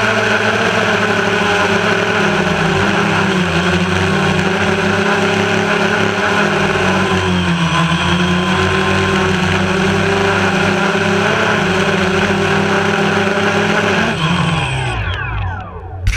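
Quadcopter drone's electric motors and propellers humming steadily in flight, the pitch shifting up and down with the throttle. Near the end the motors spin down with a falling whine and stop, as at landing, followed by a brief knock.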